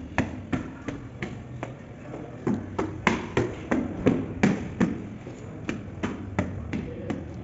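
Footsteps climbing hard stone stairs, a quick even tread of about three steps a second, the loudest steps about halfway through.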